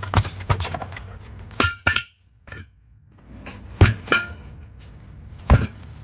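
A tire being worked onto a wheel rim by hand with a pry tool: a series of thunks and short metallic clangs, the loudest about a second and a half in, again near four seconds and near five and a half seconds.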